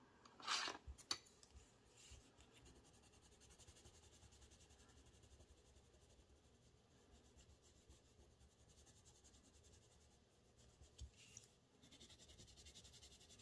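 Mostly near silence: a brief rustle of paper bills about half a second in, then a soft click. Near the end comes faint scratching of a pen or marker writing on paper.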